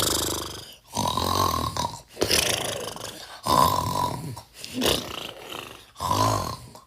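Snoring sound effect: a run of six loud, rattling snores about a second apart, each a low rumble with a breathy hiss.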